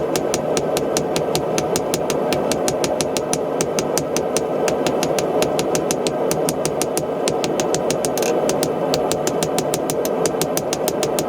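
Hammer striking hot iron on an anvil in a fast, even rhythm of about four or five blows a second, over the steady roar of the forge.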